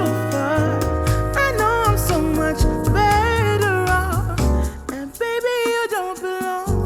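Soul-style song with a melismatic sung vocal over bass and keys, played back through studio headphones and picked up by measurement microphones.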